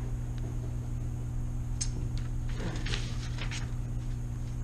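Sheets of paper rustling as they are handled and turned, a few short rustles between about two and three and a half seconds in, over a steady low room hum.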